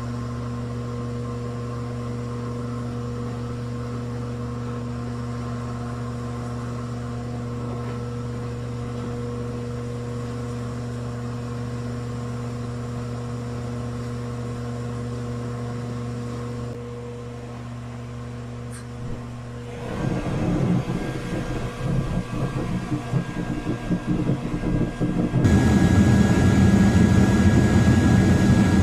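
A steady electric fan hum, then about two-thirds of the way through a metal-melting furnace burner fires up with a loud, rough rushing noise that grows louder near the end.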